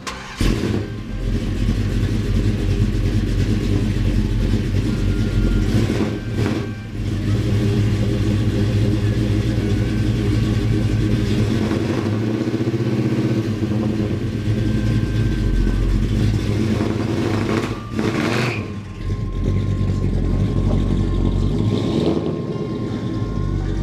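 Plymouth Duster's 440 big-block V8 running and revving hard, dipping briefly about six, eighteen and twenty-two seconds in.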